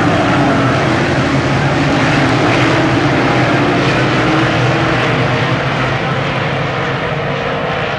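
A field of dirt modified race cars' V8 engines running hard together at racing speed, a loud, steady drone of many overlapping engines that eases slightly near the end as the pack moves away down the track.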